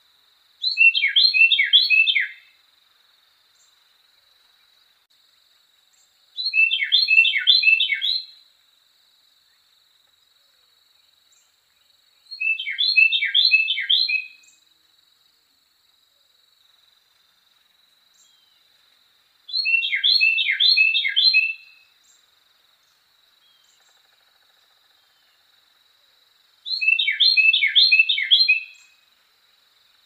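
Carolina wren singing: five songs about six seconds apart, each a loud, quick run of four or five repeated phrases lasting about two seconds.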